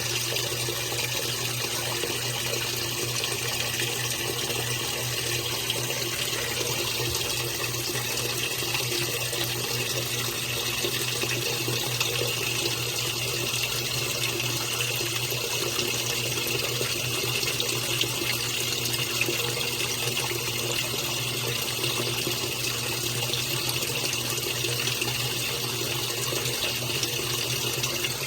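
Top-loading washing machine filling with hot water: a steady rush of water pouring into the tub, with a steady low hum underneath.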